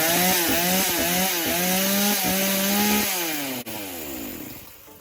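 Blue Max gas chainsaw's two-stroke engine running on its first test start of the day, its note wavering up and down with the throttle. About three seconds in, it is switched off and the engine note falls away as it spins down.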